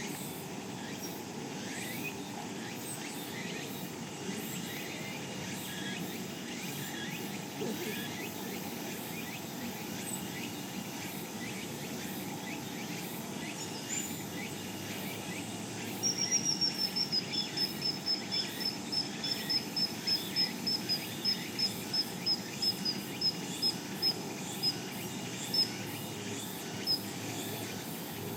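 Common kingfisher calling: a long string of short, high piping notes starting about halfway through, quick at first and then slowing and spacing out until they stop near the end, over a steady outdoor background noise.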